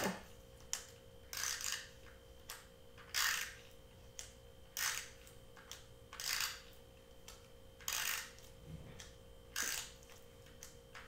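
Glue tape runner drawn in short strokes along a foam ring, a dry rasp with each pass, about six strokes roughly a second and a half apart.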